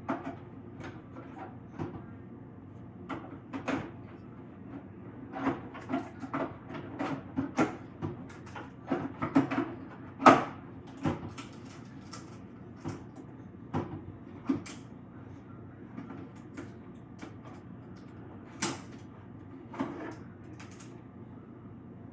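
Irregular clicks, taps and knocks of plastic parts and packaging being handled, busiest in the middle with the loudest knock about ten seconds in, over a steady low hum.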